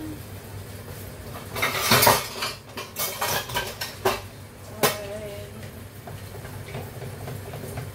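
Dishes and cutlery clattering and clinking: a burst of clatter about two seconds in, a few more clinks, and one sharp clink near the five-second mark.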